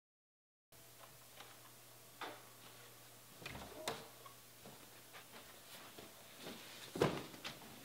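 Faint sounds of a door being opened, then a person walking in: irregular footsteps and soft knocks, the loudest about seven seconds in as he gets down onto a padded bench. A low steady hum runs under it, and the first moment is dead silent.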